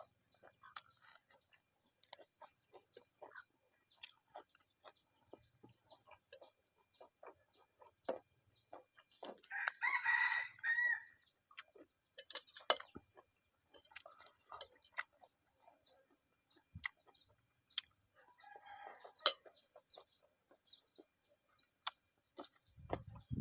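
A rooster crows once, a loud call of about a second and a half, about ten seconds in, with a fainter call near the end. Scattered small clicks and taps run underneath.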